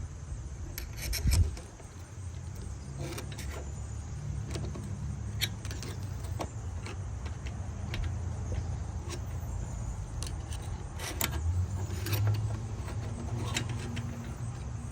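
Scattered metallic clinks and taps as a large steel washer is worked loose from a C3 Corvette front spindle, over a steady low hum.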